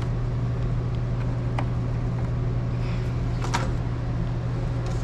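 Steady low hum of running lab equipment, with two light clicks.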